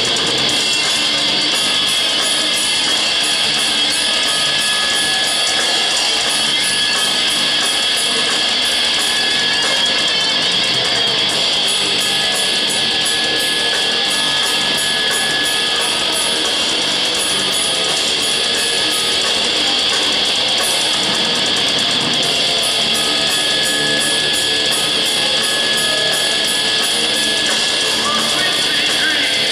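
Heavy metal band playing live: electric guitars and fast, driving drums, with shouted vocals in the mix, loud and without a break.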